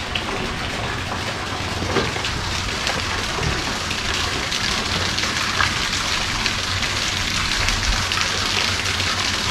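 A steady, even hiss like falling rain, with a faint low hum underneath.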